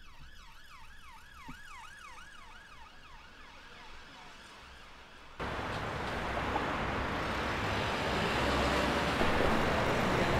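Distant emergency-vehicle siren sweeping quickly up and down, about three times a second, fading away over the first few seconds. About five seconds in it cuts sharply to a louder, steady rush of city street noise.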